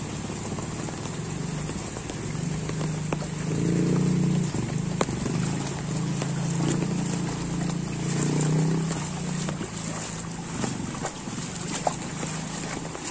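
Heavy rain falling steadily, with scattered sharp drop ticks. Under it is the low hum of small motor scooter engines riding through the floodwater, loudest from about four to nine seconds in.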